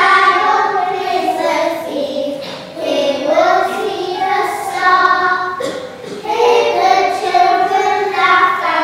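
A group of young children singing together in sung phrases, with short breaks about three and six seconds in.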